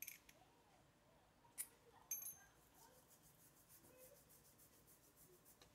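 Near silence broken by a few small clicks of metal tools and parts, one with a brief high clink. Later comes a faint, fast, even ticking or rasping.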